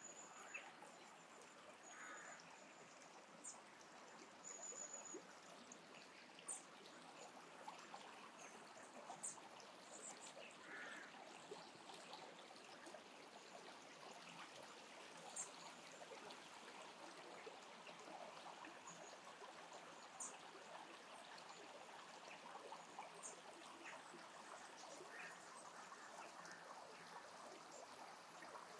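Faint trickle of a small spring-fed stream, with short high bird chirps here and there.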